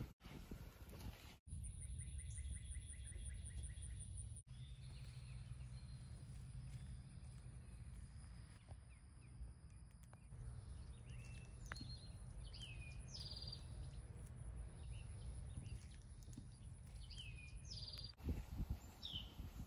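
Woodland ambience: short bird chirps come and go, mostly in the second half, over a low rumble and a steady high, thin whine. The background changes abruptly a few times, where clips are joined.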